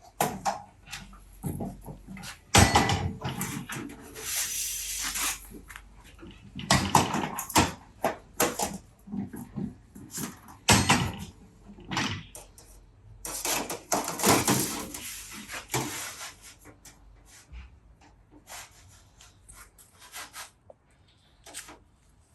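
Sheet-metal flashing being cut, bent and handled on a folding machine: irregular clanks, knocks and rattling bursts, busiest in the first two-thirds and thinning out toward the end.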